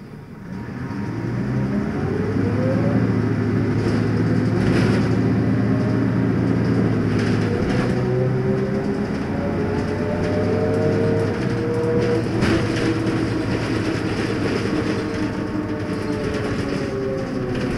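Leyland Lynx single-deck bus engine pulling away from idle. The engine note rises as it gets loud about a second in, then runs under load, with the note shifting about eight and eleven seconds in and a few short knocks.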